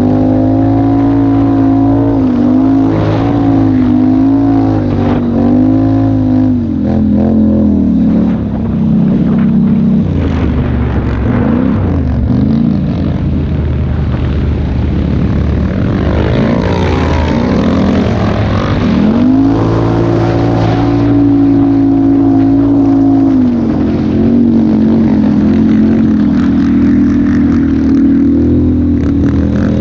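Quad bike (ATV) engine running under way in sand, its revs rising and falling with the throttle; it eases off and breaks up twice, about a third and about two thirds of the way through, before pulling steadily again.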